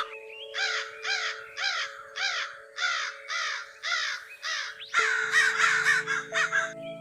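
An animal giving a run of harsh, evenly spaced calls, about two a second, eight in a row, then a denser tumble of calls about five seconds in, over a steady background drone.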